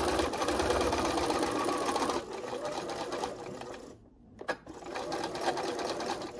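Electric sewing machine stitching a quilt binding: a fast, steady needle rattle that eases off after about two seconds and stops about four seconds in, with a couple of clicks, then starts stitching again more quietly.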